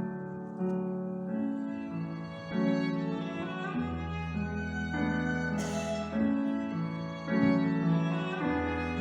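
Violin and piano playing a slow romance together: the violin holds long notes over piano chords that change every second or so.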